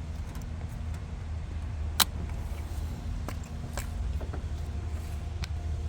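Sharp plastic clicks and taps from fuel injector electrical connectors being unlatched with a hook tool, one loud click about two seconds in and a few softer ones after it, over a steady low hum.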